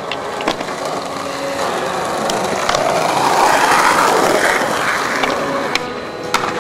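Skateboard wheels rolling over rough pavement, with a rushing sound that swells to its loudest about three to four and a half seconds in. Sharp clacks of the board are scattered through it.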